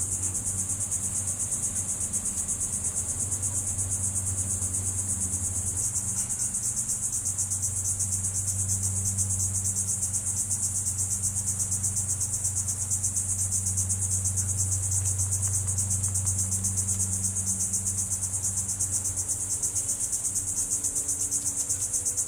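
Insects trilling in a steady, high, fast-pulsing chorus, over a low steady hum.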